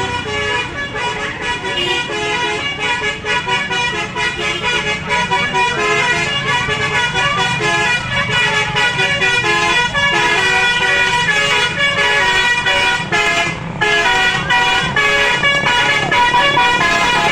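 Indonesian bus's basuri telolet horn playing a tune of stepped notes without pause, with a low rumble underneath.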